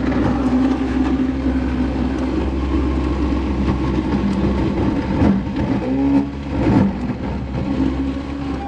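An engine running steadily at a constant pitch, with faint voices in the background.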